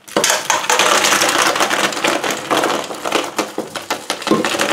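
Pot of boiled snails and hot water poured into a metal colander in the sink: water gushing and splashing, with the snail shells clattering against the metal. It starts suddenly and runs on loudly.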